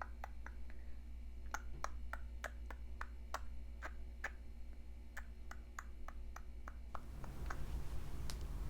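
Small eyebrow scissors snipping close to the microphone, a quick run of crisp clicks about three a second that thins out near the end.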